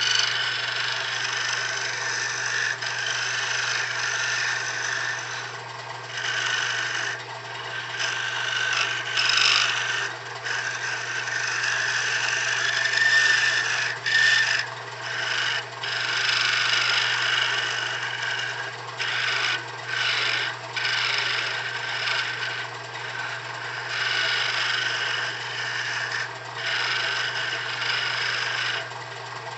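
Turning tool cutting a thin hard maple spindle on a wood lathe: a steady scraping hiss that breaks off briefly a dozen or so times and resumes, over the lathe motor's steady low hum.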